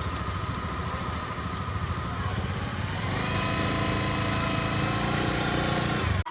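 Small motorbike engine running steadily, its pitch rising about halfway through; the sound cuts off abruptly just before the end.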